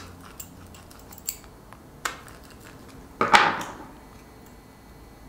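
Diagonal cutters (dykes) snipping and carving plastic to widen the LED holes in a tail-light panel: a few short, sharp clicks, then a louder, longer crunching scrape a little after three seconds.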